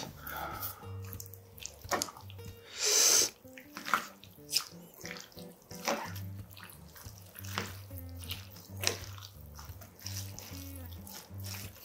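Wooden chopsticks tossing sauce-coated somen noodles and spicy whelk salad together on a plate, making wet squishing and clicking noises, with a louder wet burst about three seconds in. Soft background music runs underneath.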